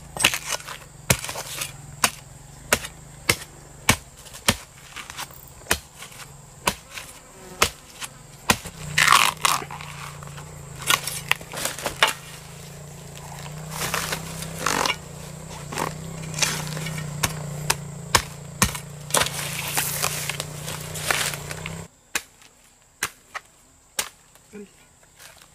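Repeated chopping strikes, roughly one every two-thirds of a second, over a steady low hum that cuts off suddenly near the end.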